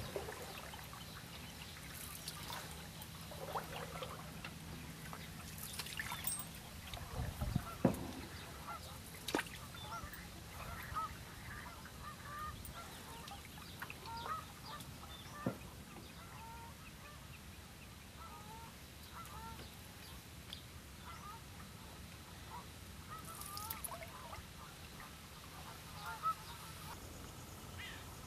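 Many short bird calls, faint and repeated over a steady background hiss, with a few sharp knocks, the loudest a low thump about eight seconds in.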